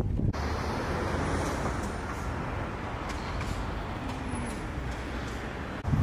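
Steady city traffic noise: an even rush of passing road vehicles, with no single engine standing out.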